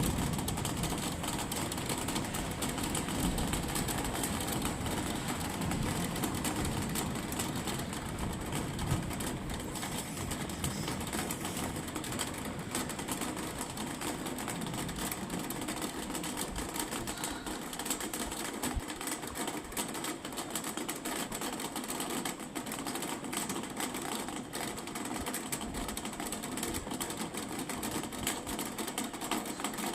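Rain falling steadily, a dense patter of fine drop ticks. A low rumble underneath in the first part fades out around halfway.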